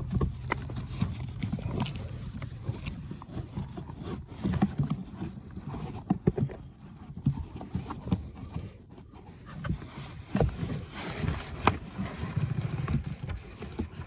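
Handling noise of a cabin air filter being pushed and worked into its housing behind the glove box: irregular scraping, rubbing and clicks of the filter frame against the plastic housing.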